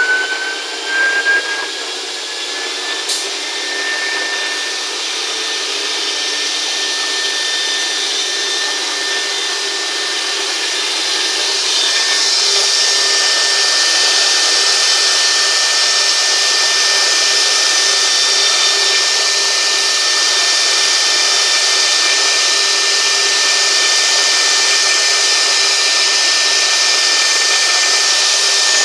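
Door-making CNC router's spindle running with a high whine that rises in pitch over the first few seconds, then holds steady. About twelve seconds in, a rushing wood-cutting noise grows louder over it.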